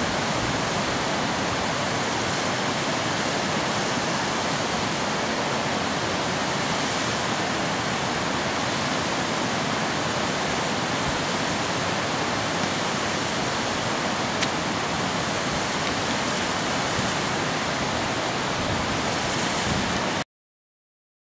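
Steady rushing of a cascading mountain creek pouring down a rocky waterfall, an even hiss that cuts off suddenly near the end.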